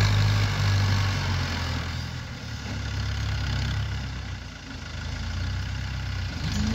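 Farm tractor's diesel engine running under load while pulling a laser land leveller. A steady low hum that fades a little in the middle and grows stronger again, with a higher note joining near the end.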